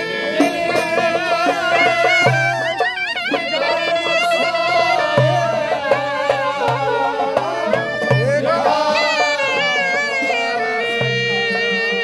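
Clarinet played live in Turkish fasıl style: a melody with wide, wavering vibrato and quick ornamented runs, over a steady rhythmic accompaniment.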